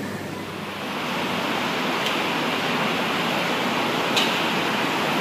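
Steady rushing noise, like wind or running water, that swells about a second in and holds even, with two faint clicks.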